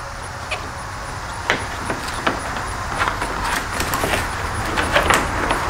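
Rubber weather stripping being pressed by hand into its plastic channel along the front of a BMW F30's engine bay: scattered soft clicks and rubbing, more frequent after the first second and a half, over a steady low rumble.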